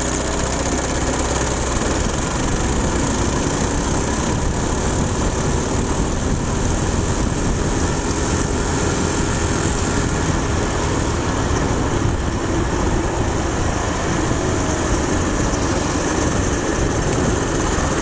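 Small gasoline go-kart engine pulling at full throttle, its pitch rising over the first moments and then holding a steady drone, mixed with a constant rush of wind and road noise.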